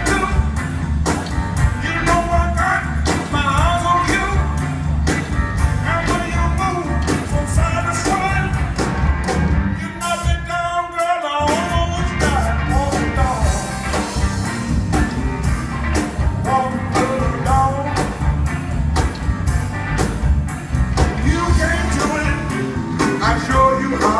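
Live blues band playing: a male singer on a microphone over guitars, bass and a steady drum beat, heard from the audience. About ten seconds in, the bass and drums drop out for a moment while the voice carries on, then the band comes back in.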